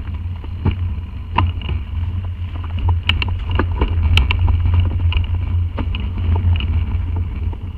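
Mountain bike riding fast down a rough dirt trail, heard from a camera riding along: a steady deep rumble of wind buffeting the microphone, with repeated sharp clatters and knocks as the bike rattles over rocks and bumps.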